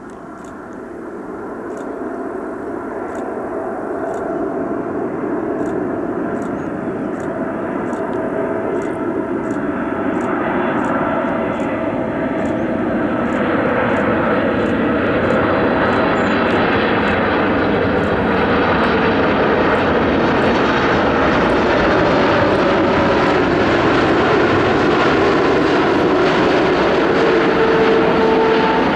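Four GEnx turbofan engines of a Boeing 747-8 on its landing approach: a jet rumble with a whine in it, growing louder over the first dozen seconds as the aircraft comes closer, then holding steady and loud.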